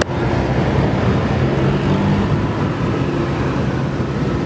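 Street traffic: vehicle engines running steadily close by, with a city bus driving past among them.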